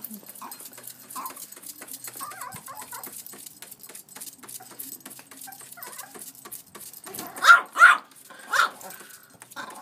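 Yorkshire terrier giving three short, sharp barks in quick succession near the end, with one weaker call after them. Before the barks there are several seconds of soft scattered clicking and scuffling.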